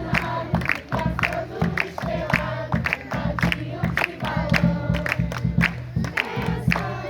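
A group of voices singing together over a steady percussive beat of about two strikes a second.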